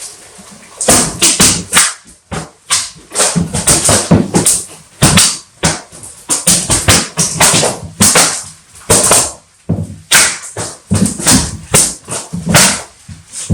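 Loud, irregular run of sharp clacks and smacks, about two or three a second, starting about a second in, each with a short ring.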